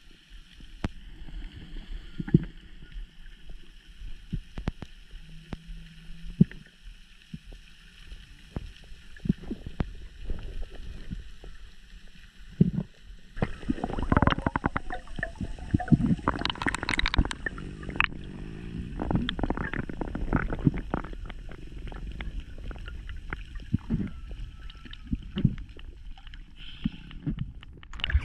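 Muffled underwater sound picked up by an action camera in its waterproof housing: a low rumble with scattered knocks and clicks, growing busier and louder about halfway through as a diver handles a freshly speared wahoo.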